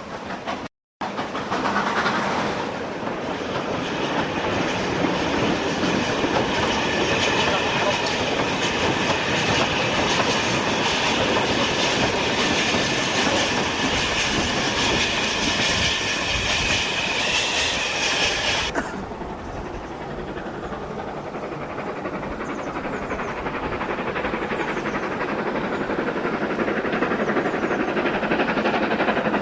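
GER N7 0-6-2 tank steam locomotive working a train: a steady rush of running noise and steam. A strong high hiss over it cuts off suddenly about two-thirds through, leaving a lower rush.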